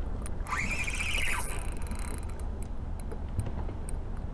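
Spinning reel's drag squealing for about a second, rising and then falling in pitch, as a hooked zander pulls line off against it. Scattered light clicks from the reel follow.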